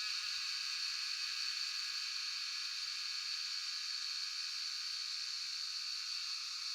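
Cicadas calling in a steady chorus, an even, high-pitched buzzing drone.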